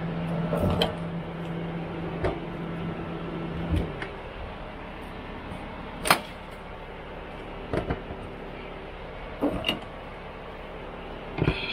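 A steady low hum that stops about four seconds in, with a scattering of separate knocks and clunks, the sharpest about six seconds in.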